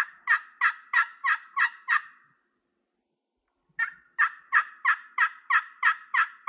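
3-inch titanium-surface turkey pot call in a hackberry pot, scraped with a striker to run a series of hen yelps, about three a second, with a hollow tone. One run ends about two seconds in, and a second run starts about four seconds in after a short pause.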